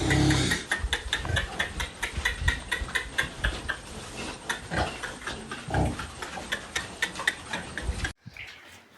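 Pigs grunting amid a rapid clatter of sharp clicks and knocks, with a couple of louder grunts about five and six seconds in. The sound cuts off abruptly a second before the end.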